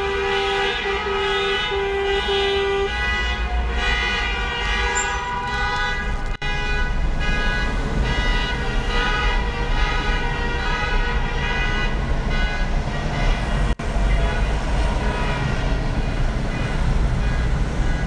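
Many car horns honking at once in stopped traffic in a road tunnel, a chain reaction of long overlapping horn blasts of different pitches over the low rumble of idling engines. One horn gives a run of short beeps in the first few seconds.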